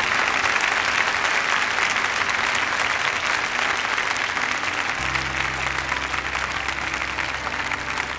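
Audience applauding, a dense, even clatter of many hands clapping, over background music. About five seconds in, low sustained notes of the music come in under the clapping.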